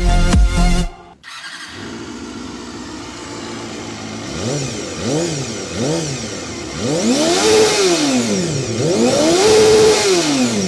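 Motorcycle engine, back running after a long repair, idling and then being revved: three short blips followed by two longer, higher revs, each rising and falling back.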